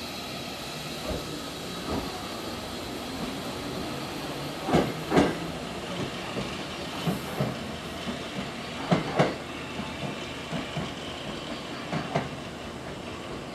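Nose Electric Railway 7200 series electric train pulling out and moving away, its wheels clacking over the track in pairs of clicks, three pairs in all, over a steady hiss and hum.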